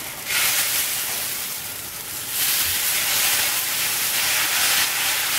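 Tomato dosa batter sizzling on a hot iron dosa griddle (tawa) as a ladle spreads it in circles. The hiss swells about half a second in and again at about two and a half seconds.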